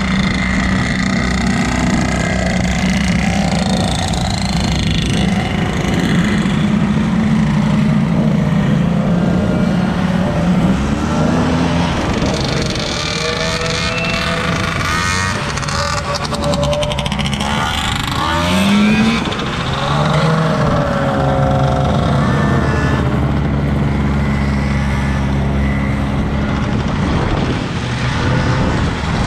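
Vintage snowmobiles on wheel kits running past one after another on wet pavement, with road traffic mixed in. The engine note holds steady, and around the middle it rises and falls as sleds pass close by.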